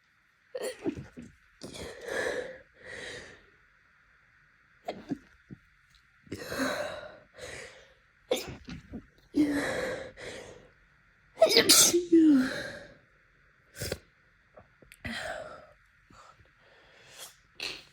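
A person's allergy sneeze fit: a run of catching, gasping in-breaths building up, and about eleven and a half seconds in one loud sneeze with a short falling voiced tail, followed by a few smaller breaths.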